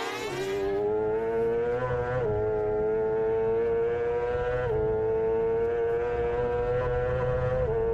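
On-board sound of a 600cc four-stroke Supersport racing motorcycle engine at high revs under full throttle, the pitch climbing slowly through each gear and dropping sharply at four quick upshifts.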